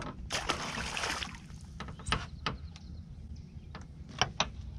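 A short splash as a bass is let back into the lake, then a few sharp clicks and knocks as the fishing rod and reel are picked up and handled.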